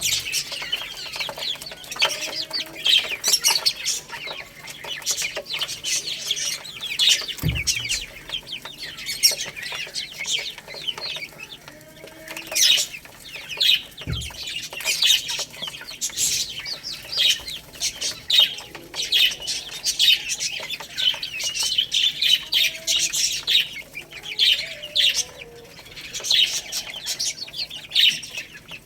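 A flock of baby chicks peeping without pause in short, high-pitched chirps. Twice there is a dull low thump.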